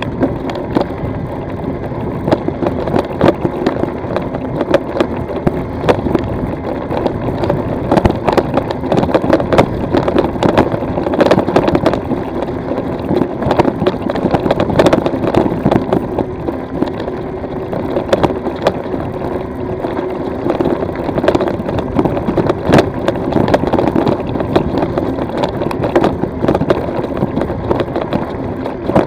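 E-bike riding over a loose gravel and stone track: the tyres crunch over the stones, and the bike rattles with frequent sharp knocks from the rough surface. A steady hum runs underneath.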